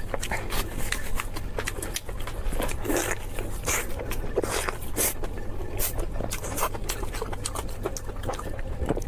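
Close-miked eating: a person chewing and crunching food, with many short, irregular crisp crackles and wet mouth sounds.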